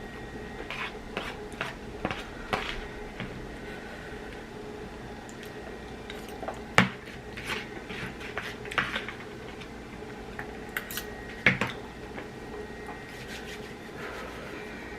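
Utensils clinking and scraping against a bowl as noodles are eaten: scattered light clicks, with two sharper knocks, one about halfway through and one later on.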